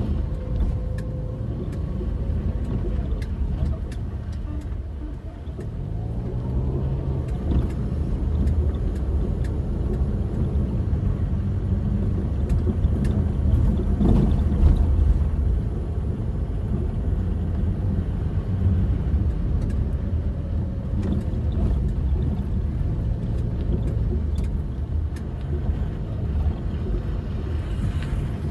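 Car engine and tyre rumble heard inside the cabin while driving over a rough, unpaved dirt road, the engine's pitch rising and falling a few times, with scattered small clicks and rattles.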